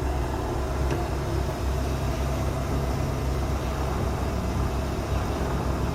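Hardinge HC lathe running at low spindle speed while its power feed motor drives the carriage and cross slide along the bed: a steady machine hum, with a faint tick about a second in.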